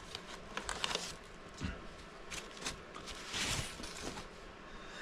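Rustling and crinkling of the soft white protective wrap as a camera body is drawn out of its cardboard box and unwrapped, with scattered small clicks of handling and a longer rustle about three and a half seconds in.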